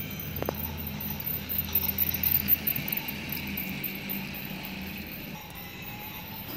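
Toy train's small electric motor whirring and its wheels clicking over the plastic track as it passes close by, loudest about two to three seconds in, then fading.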